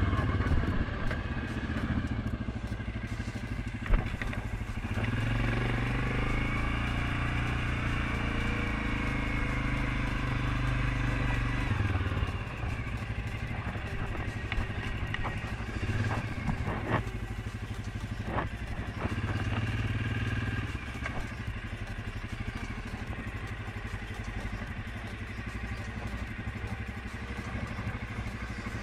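Suzuki KingQuad 750 ATV's single-cylinder engine running along a dirt trail, the throttle rising and easing off by turns. A sharp knock comes about four seconds in, and there is occasional clatter over the rough ground.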